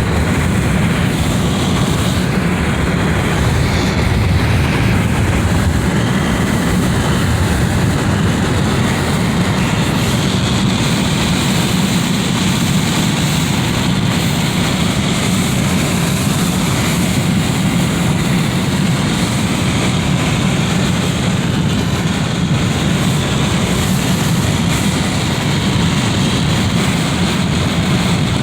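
Wind rushing through a window, a steady, loud, deep rush without gusts or breaks.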